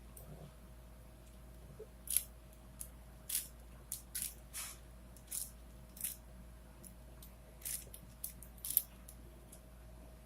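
Plastic layers of a 4x4x4 Rubik's cube (Rubik's Revenge) being turned by hand: about a dozen short, irregular clacks, starting about two seconds in and stopping near the end.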